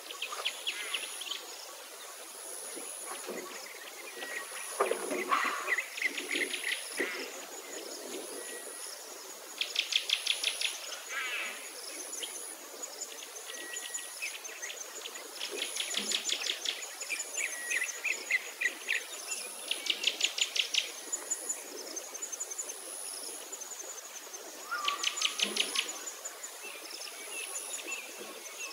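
Birdsong: rapid trills of about a second each and scattered chirps, over a short high note repeating about once a second.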